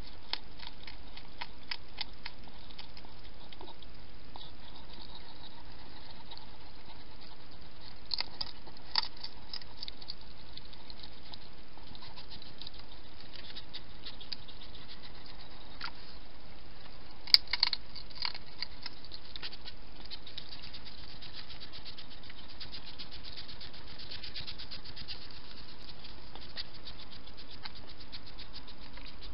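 Hedgehog feeding with its head in a shallow dish: a run of quick small mouth clicks over a steady hiss, with a sharper click a little past halfway.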